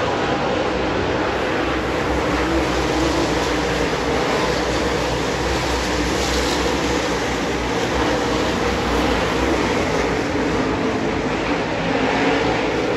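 A field of dirt late model race cars running laps on a dirt oval, their V8 engines blending into one steady, loud drone.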